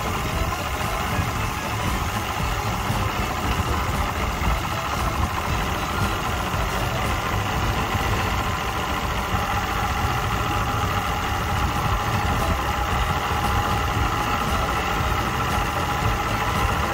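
Mercury outboard engine idling steadily with its cowling off, just after a Sea Foam treatment to clean carbon from it.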